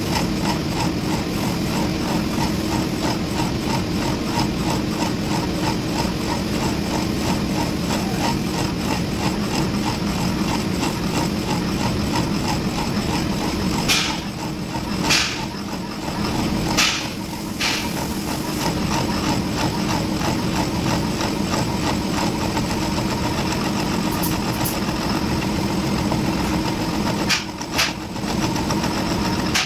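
Milling machine spindle turning a boring bar that cuts out the bore of a forklift steering axle housing: a steady machine hum. A few sharp clicks come about halfway through and twice more near the end.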